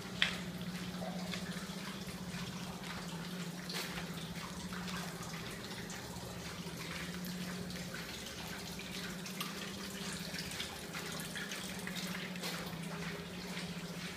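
Steady low hum with an even hiss like running water inside a concrete tunnel, with scattered light drips or ticks and one sharper click about a quarter-second in.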